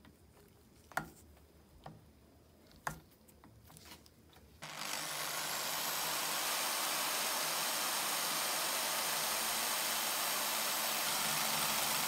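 Three sharp clicks about a second apart as a washer is handled onto a brass part chucked in a drill press. Then, about four and a half seconds in, the drill press motor switches on abruptly and runs steadily.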